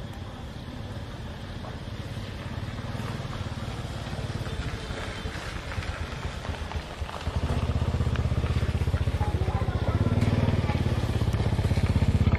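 A motor vehicle engine running off-screen, a low steady drone that gets louder about seven seconds in.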